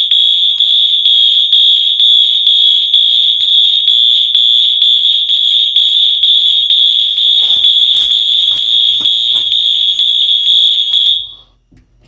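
Fire alarm sounding a steady, loud, high-pitched electronic tone after a smoke detector has been tripped into alarm. The tone cuts off suddenly about eleven seconds in.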